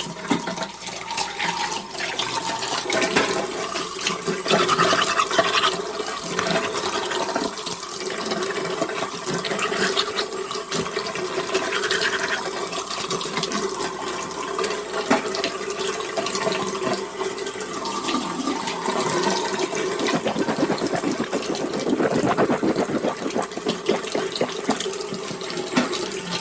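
Toothbrush scrubbing teeth: a continuous wet brushing sound made of quick back-and-forth strokes.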